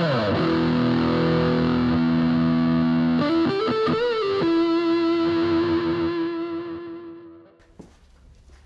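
Intro music: a distorted electric guitar chord rings out, shifts with a bent note a little past a third of the way in, then a single held note fades away, leaving it fairly quiet near the end.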